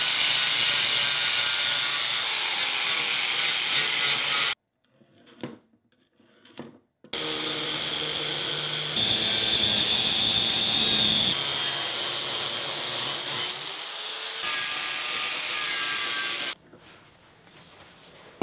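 Angle grinder cutting and grinding a metal headlight bracket, the motor whining steadily. It cuts off about four and a half seconds in, starts again a couple of seconds later, and stops about two seconds before the end.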